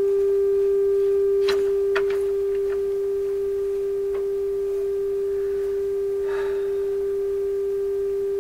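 A steady single-pitched test tone from the PYE 39HC tube radio's loudspeaker: the signal generator's modulated 455 kHz signal leaking through the IF stages on the AM band, where the 455 kHz trap should be keeping it out. Two clicks sound about one and a half and two seconds in as a knob on the chassis is worked, and the tone is a little quieter after them.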